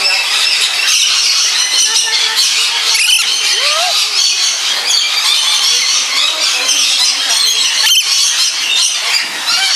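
A flock of lories and lorikeets screeching and chattering without pause, shrill overlapping calls filling the aviary, with a sharp click about three seconds in and another near the end.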